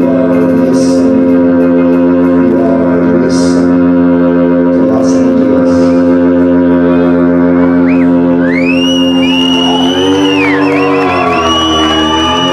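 Live band music with no singing: a sustained organ-like keyboard drone holds steady, and about two-thirds of the way in high, gliding synth tones come in, swooping up and down over it.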